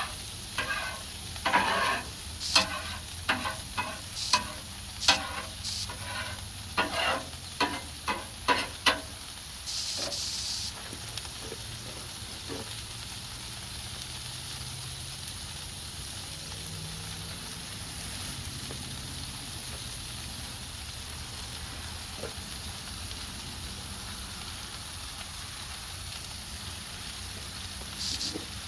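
Meatloaf burger and hot dogs sizzling as they fry, with a quick, irregular run of sharp clicks and knocks over the first nine seconds. A short, louder hiss comes about ten seconds in, then steady sizzling.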